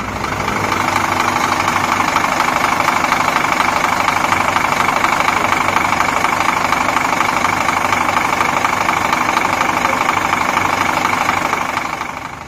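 A steady engine running at an even speed, with a fast fine throb and no change in pitch, fading in at the start and fading out near the end.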